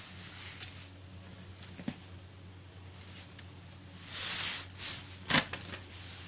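Saree fabric rustling and sliding as it is handled, with a louder swell of rustling about four seconds in and a few light clicks, over a faint steady hum.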